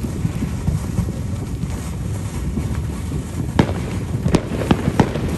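Fireworks going off: scattered sharp pops and cracks over a steady low rumble, turning into a quick run of crackles in the second half.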